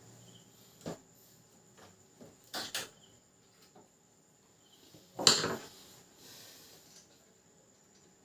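Scattered clicks and light taps of hands and a tool working a cable into an opened-up inkjet printer, with a double tick about two and a half seconds in and one louder knock about five seconds in.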